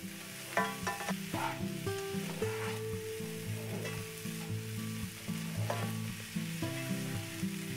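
Cauliflower rice with shrimp sizzling in a hot nonstick pan on high heat while a slotted spatula stirs and scrapes through it, in the final stir-fry before it is done. Soft background music with held notes changing in steps plays along.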